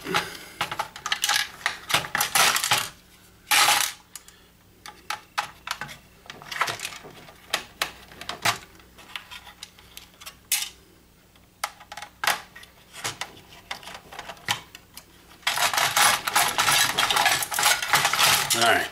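Clicking and clattering of a hand screwdriver on screws and plastic projector parts being handled and lifted out during a teardown. Busy rattling in the first few seconds and again near the end, with scattered single clicks between.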